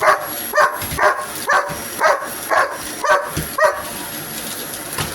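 A dog barking in a steady run of short barks, about two a second, eight in a row, stopping a little past halfway.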